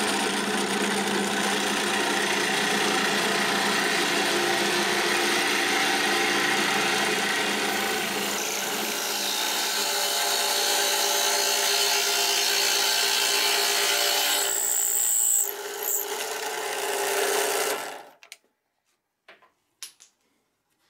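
Drill press running a hole saw through the end of a wooden rod: a steady motor hum under the rasp of the teeth cutting wood, with a brief high whine about 15 seconds in. The sound stops suddenly about 18 seconds in, leaving a few faint clicks.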